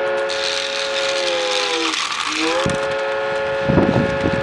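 Train whistle sounding a steady multi-note chord, sagging in pitch and breaking off about two seconds in, then sounding again and holding. A rattle joins it near the end.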